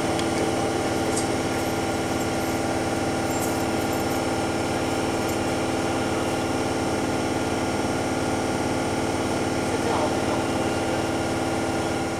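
ÖBB class 1142 electric locomotive standing at the platform, giving off a steady electrical hum made of several steady tones over a background hiss.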